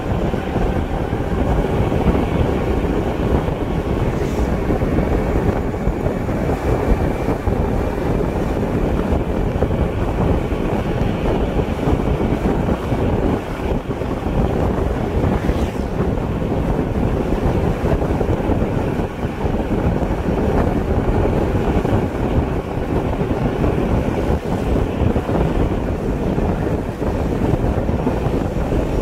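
Steady wind buffeting the microphone over the road and engine noise of a moving vehicle driving at speed.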